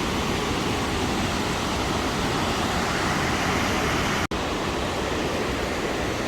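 Burney Falls waterfall pouring into the pool at its base: a steady rush of falling water that drops out for an instant about four seconds in.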